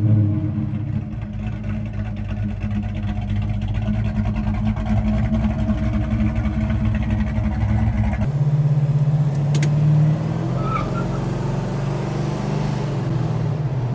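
1969 Plymouth GTX's fuel-injected 440 V8 with ceramic-coated headers and free-flow exhaust, idling steadily at the tailpipes shortly after a cold start. About eight seconds in, the sound changes abruptly to a steady, lower engine drone heard inside the cabin while the car is driven.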